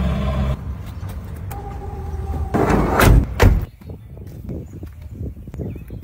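A passenger van's sliding door rolling and banging shut about three seconds in. After it come light knocks of plastic plant pots being set down on concrete.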